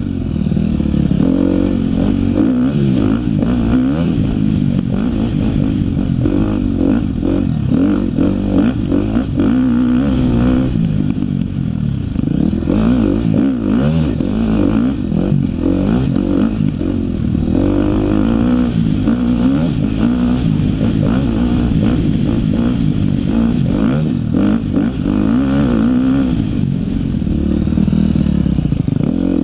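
2013 KTM 250 XC-F four-stroke single-cylinder dirt bike engine under hard riding, revving up and down over and over as the throttle is worked. Short clattering knocks from the bike run through it.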